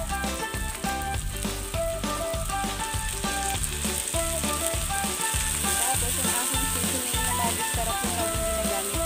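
Shredded banana blossom sizzling as it sautés in a wok, with background music playing underneath.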